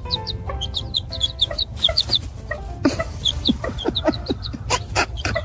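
Birds calling: many short, high chirps in quick succession, with a few sharp knocks near the end.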